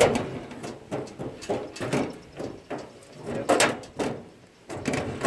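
Irregular knocks and clatter of metal parts on a McCormick International B46 baler being handled around its twine compartment. The loudest knock is right at the start, with another strong one about three and a half seconds in.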